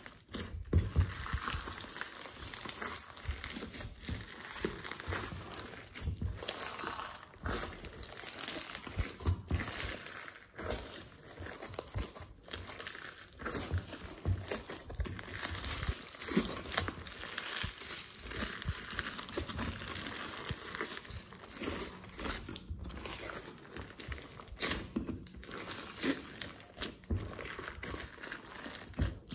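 Hands kneading, squeezing and folding a large mass of fluffy slime mixed with clay, glitter, sprinkles and foam beads. It makes a steady crinkly squishing with many irregular small clicks and pops.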